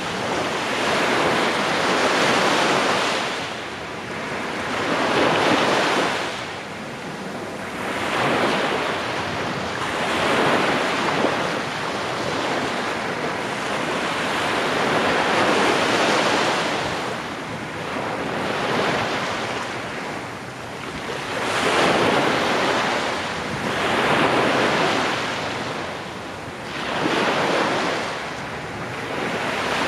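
Small sea waves breaking and washing up a sandy beach: a hiss of surf that swells and fades every few seconds. Some wind noise buffets the microphone.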